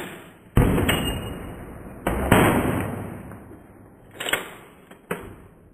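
Rifle shots: a sharp crack at the start, then two loud shots about a second and a half apart, each trailing off slowly over a second or more, followed by two lighter, sharper cracks near the end.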